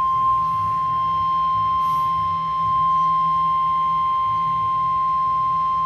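NOAA Weather Radio 1050 Hz warning alarm tone: one steady, unbroken high-pitched beep, the alert signal that a warning, here a tornado warning, is about to be broadcast.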